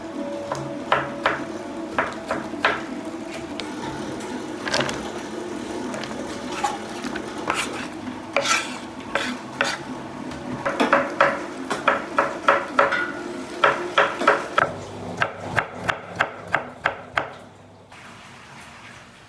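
Kitchen utensils knocking and clattering on cookware, scattered at first, then a quick run of sharp clacks about three or four a second that stops about eighteen seconds in, over a steady low hum.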